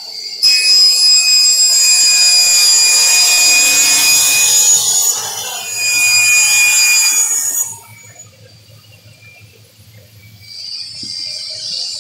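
Sliding panel table saw cutting a PVC board: the blade bites in abruptly about half a second in and cuts with a loud, high whine for about seven seconds, then drops to a much quieter run before a high hiss rises again near the end.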